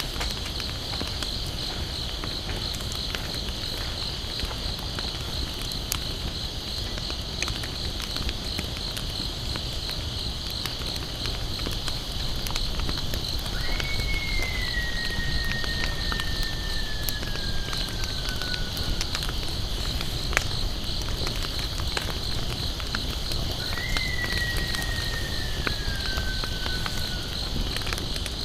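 Wood campfire crackling with scattered sharp pops over a steady, pulsing high insect chorus. A long whistled call that falls slowly in pitch sounds twice, about halfway through and again near the end.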